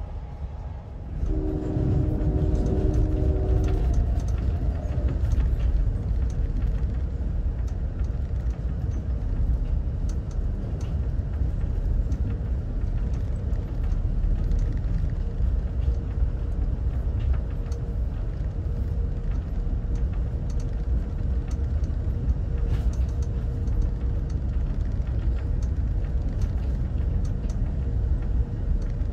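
Amtrak passenger train running, heard from inside the passenger car: a steady low rumble of wheels on rail that grows louder about a second in, with scattered faint clicks and a faint steady whine. Just after the rise, a multi-note horn chord sounds for about two and a half seconds.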